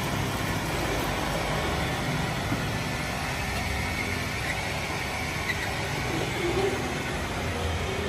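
Makita 40Vmax VC010G cordless upright vacuum cleaner running steadily, a level rushing of drawn air while its floor head is worked over a concrete floor.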